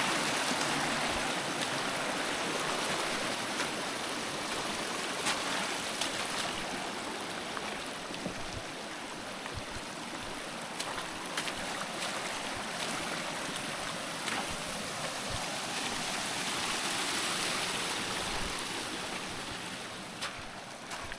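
River water rushing steadily over a stony bed, with a few faint knocks now and then.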